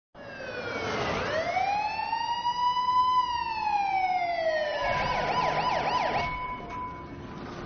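Ambulance siren wailing slowly down, up and down again, then switching to a fast yelp about five seconds in.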